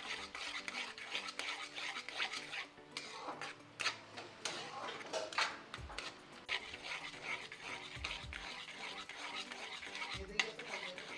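A flat metal spatula stirs and scrapes melting sugar around a metal kadhai, with repeated scrapes and clinks of metal on metal. The sugar is being melted dry, without water, into syrup.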